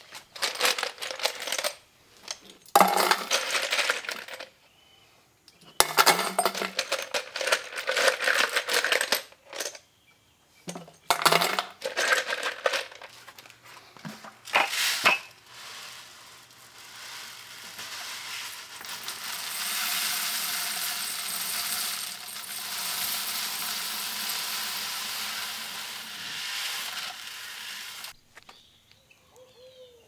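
Stainless steel tumbling pins and metal RF adapters poured into a plastic tumbler drum, clattering and clinking in several separate pours. Then water is poured from a bucket into the drum: a steady pour lasting about twelve seconds that stops shortly before the end.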